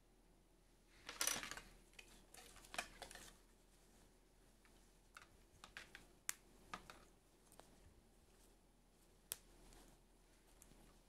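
Quiet handling sounds from a Barbie doll and its small plastic handbag accessory. A short burst of rustling and crinkling comes about a second in and another around three seconds, followed by scattered light clicks and taps.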